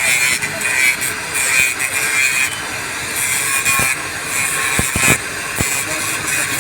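Steady crackling hiss of an electric welding arc, with a few sharp clicks in the second half.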